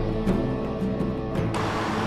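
Background music with a steady beat, which cuts off suddenly about one and a half seconds in and gives way to a steady rushing noise of road traffic.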